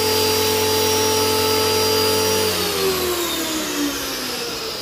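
Electric pressure washer's motor running with a steady whine, then winding down in a falling pitch from about halfway through. The spray has gone weak and the machine seems to be faltering.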